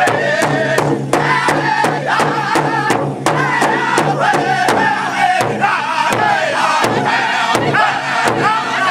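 Powwow drum group singing together over a large powwow drum struck in unison with drumsticks, a steady beat of about three strokes a second.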